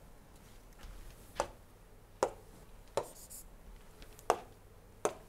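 Stylus tapping and writing on a tablet screen: five faint, sharp taps about one a second.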